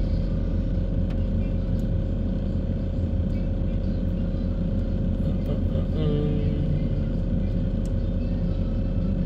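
Steady low hum of a car's engine and road noise heard from inside the cabin as the car moves slowly in traffic, with a few faint ticks.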